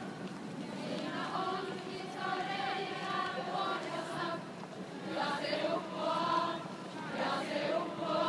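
A large group of people singing a song together, many voices blending like a choir, in phrases with short breaks.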